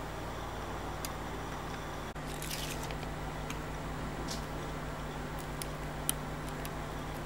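Steady low electrical hum with a few small, faint clicks of steel tweezers touching the metal parts of an automatic watch movement.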